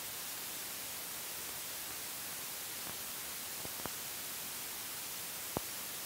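Steady hiss of a 1950s film soundtrack, with a couple of faint clicks past the middle and a sharper pop near the end.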